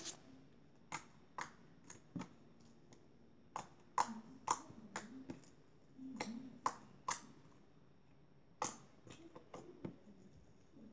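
Crunchy foam-bead slime being pressed and poked by hand, giving irregular sharp pops and clicks, with a pause of about a second and a half before a last run of them.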